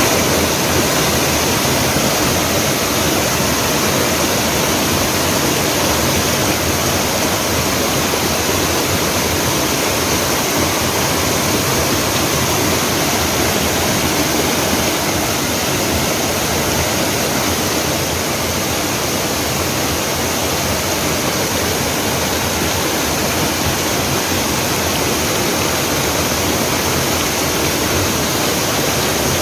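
Mountain stream water cascading over rocks in a small waterfall: a loud, steady rush.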